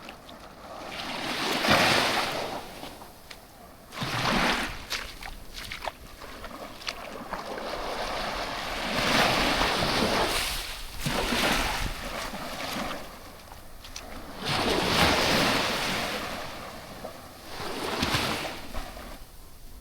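Waves breaking and washing up a sandy beach: the surf noise rises and falls in about five swells.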